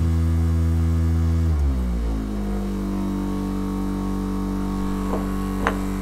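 Homemade traction motor spinning a washing-machine water pump used as a generator, running with a steady hum. About a second and a half in, the pitch glides down and settles lower as a light bulb load is switched onto the generator and drags the rig down to about half speed. A click near the end.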